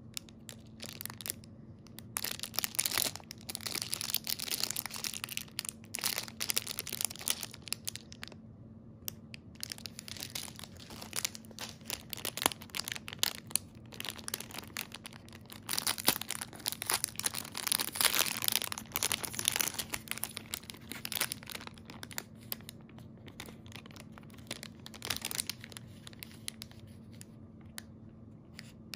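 Thin clear plastic jewelry bags crinkling and rustling in irregular bursts as they are handled and pulled open, with a faint steady hum underneath.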